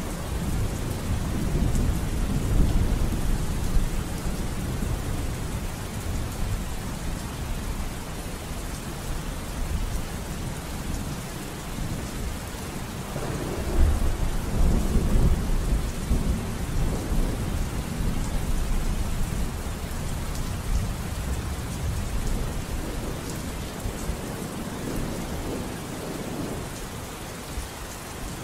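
Steady rain with low rolling thunder; the rumble swells about halfway through.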